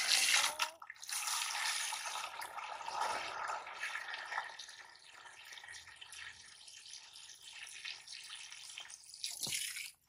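Water pouring from a garden hose and splashing into a plastic basin as it fills. The splashing is louder in the first few seconds and quieter from about the middle on.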